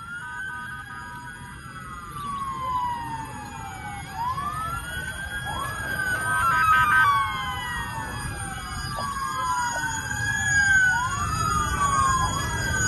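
Several emergency-vehicle sirens wailing at once, their rising-and-falling sweeps overlapping, growing louder toward the end.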